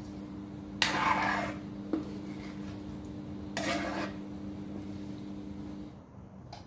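Metal ladle stirring chicken in broth in a wok, scraping against the pan twice, about a second in and again near the four-second mark, with a sharp clink of metal on metal between them. A steady low hum runs underneath and stops near the end.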